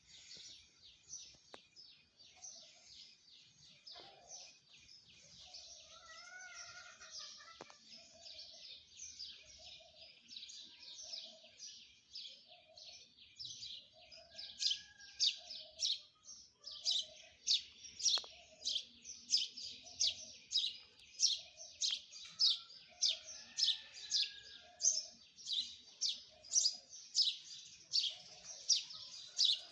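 Small birds chirping continuously in a dense, high chorus. About halfway through, one bird's sharp chirp grows louder and repeats about twice a second, over a lower call repeating roughly once a second.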